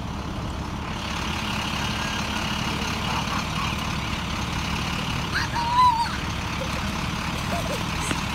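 Diesel engines of school buses idling, a steady low rumble.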